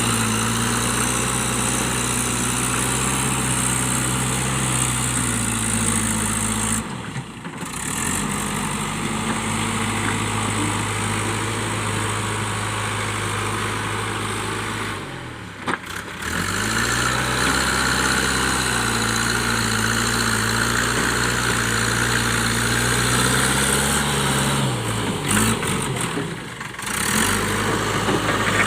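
JCB 3DX backhoe loader's diesel engine running steadily, its note sagging and picking up again a few times. The sound cuts out briefly three times, about 7, 15 and 26 seconds in.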